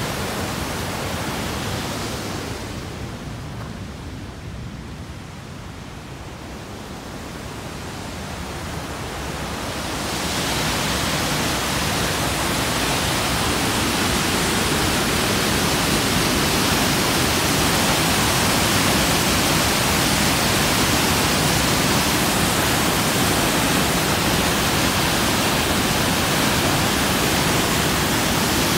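Sol Duc Falls' water crashing into its gorge, a steady rushing noise. It grows softer a couple of seconds in, swells back about ten seconds in, and then holds steady and loud.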